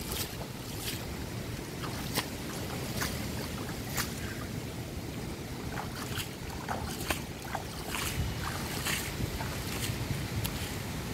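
Wind buffeting the microphone with a steady low rumble over a choppy river, and small irregular splashes of water lapping at the bank.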